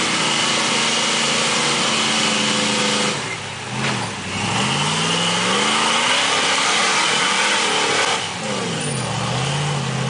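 Rock buggy's engine working hard while crawling up rock ledges: held at high revs, dropping off briefly about three seconds in and again about eight seconds in, then revving back up each time.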